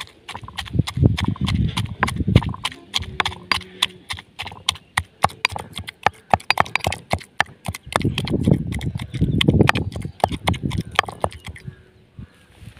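Stone pestle pounding and grinding tomato chutney in a stone mortar: hard stone-on-stone knocks several times a second, with duller thuds as the wet mash is crushed. The knocking dies away near the end.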